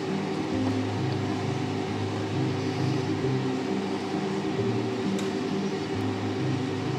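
Steady electrical hum from the hob under a saucepan of béchamel sauce, its low tones shifting in pitch every half second or so.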